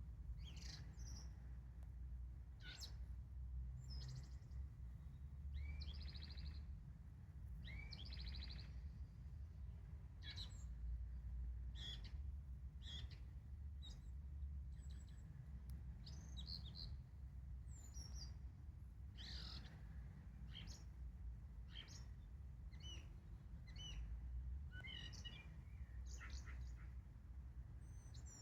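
Morning birdsong from a Eurasian blackbird and a Eurasian magpie: short calls and phrases coming every second or so, some of them quick rattling notes. A steady low hum runs underneath.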